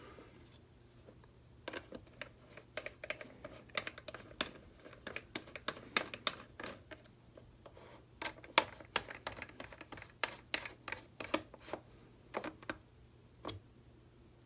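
Irregular light clicks and taps of a Phillips screwdriver and small plastic and metal clock parts being handled as the flip clock's case is screwed back together.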